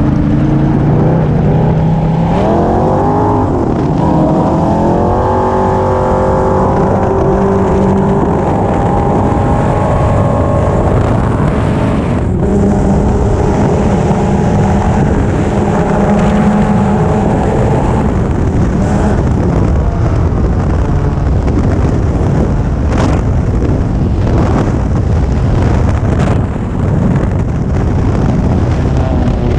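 Sand rail engine pulling hard up a steep dune climb. The revs rise over the first few seconds and then hold high, with a brief break about twelve seconds in. Later it turns rougher, with a rush of wind and a few knocks.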